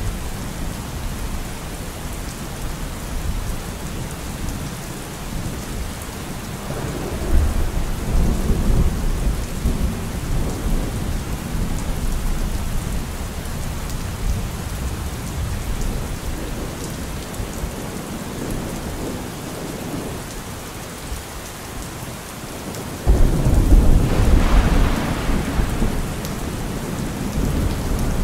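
Steady rain with two rolls of thunder. The first rumbles up about seven seconds in; the second, louder one breaks suddenly about twenty-three seconds in and fades over a few seconds.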